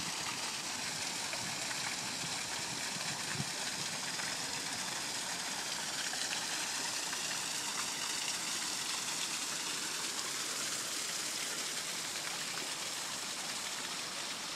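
Steady, even rush of running water from a garden stream or cascade feeding a pond.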